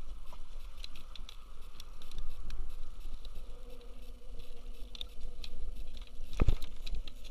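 Scattered small clicks and taps of pliers and a metal jig being handled while a hook is worked out of a small tautog's mouth, with one louder knock about six and a half seconds in.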